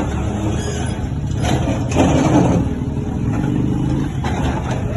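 Diesel engine of heavy earthmoving machinery running steadily, with a few light knocks.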